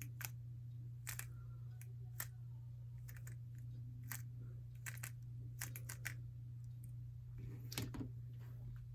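3x3 Rubik's cube being turned quickly through an OLL algorithm: an irregular run of light plastic clicks as the layers snap round, over a steady low hum.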